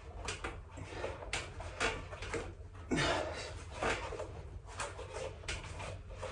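A man breathing hard in short, repeated breaths through a set of seated knee-tucks on a weight bench, about one breath per rep, over a faint steady hum.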